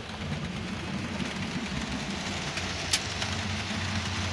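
Model trains running on the layout: a model Union Pacific diesel locomotive hauling freight cars, making a steady low rumble, with a sharp click about three seconds in.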